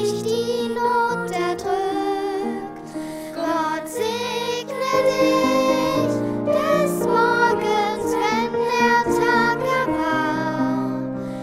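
A slow children's church song: singing with instrumental accompaniment, long held notes with vibrato that change pitch every second or so.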